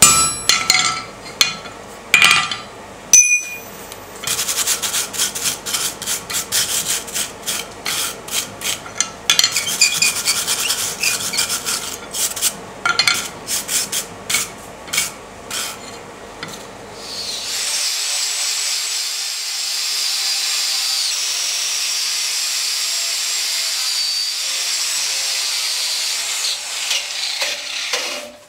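Hammer blows on red-hot steel shaping a blacksmith's holdfast over the anvil's edge: a few strikes, then a fast run of them. About 18 s in, this gives way to an angle grinder with a flap disc grinding steel, a steady grinding hiss with a high whine.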